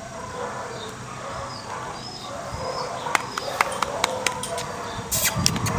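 A small dog sniffing through grass close by, in short irregular snuffs, with a few faint high bird chirps in the background and rustling that picks up near the end.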